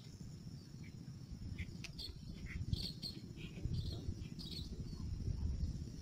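Insects trilling steadily in a high, even buzz, with short bird chirps scattered over it and a low rumble underneath.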